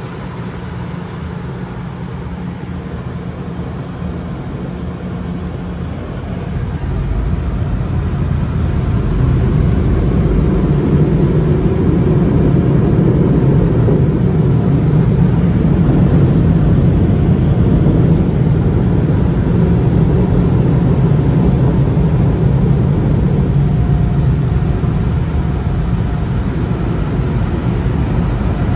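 Car wash tunnel dryer blowers rushing air over the car, heard from inside the cabin. The rush grows louder a few seconds in as the car passes under the blowers, then holds steady.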